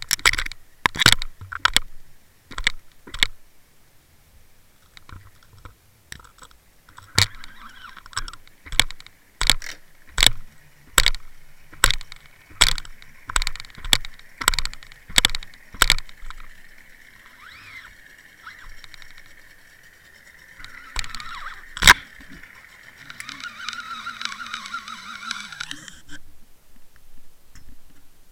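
Handling noise on a camera heard underwater: a run of sharp knocks and clicks, one or two a second, as the camera is jostled and spun. Near the end come a fainter rushing and a wavering hum.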